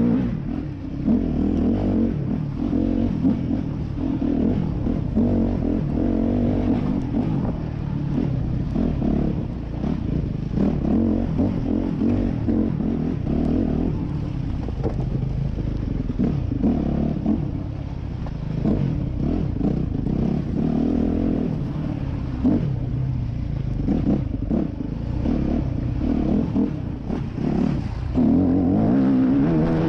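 Yamaha YZ250F four-stroke single-cylinder dirt-bike engine revving up and dropping back again and again as it rides at low speed over rough ground, with clattering knocks throughout.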